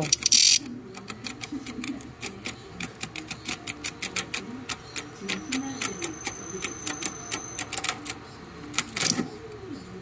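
Black cicadas' claws and wings scratching and tapping against a plastic container: irregular clicks, several a second, with a short buzz right at the start and another near the end.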